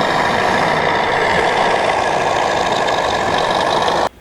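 Steady, loud engine-running sound effect that starts abruptly and cuts off suddenly after about four seconds.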